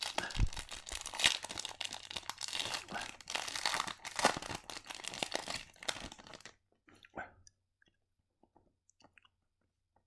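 A foil hockey card pack being torn open and its wrapper crinkled and crumpled, a dense crackling for about six and a half seconds that then stops, leaving only a few faint taps of cards being handled.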